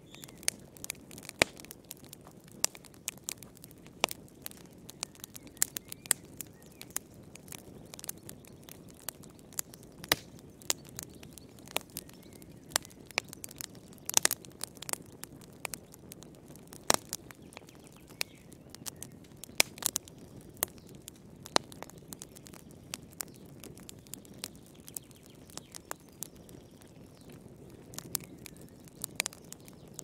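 Wood logs burning in a fireplace, crackling with frequent irregular sharp pops over a soft steady rush of flame.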